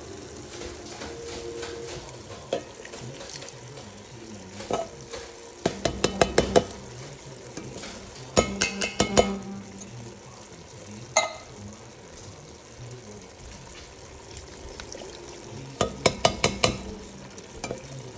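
Metal food cans knocked and scraped against the rim of an enamelled pot as canned tomatoes are emptied in, in three short clusters of quick taps and one single knock, over a low steady sizzle of browned ground meat.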